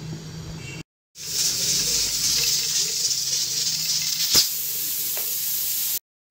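Steam hissing steadily from an aluminium pressure cooker's weighted valve, with a sharp click a little after four seconds in.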